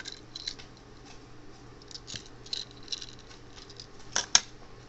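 Small parts and packaging being handled: scattered light rustles and ticks, with two sharp clicks close together about four seconds in.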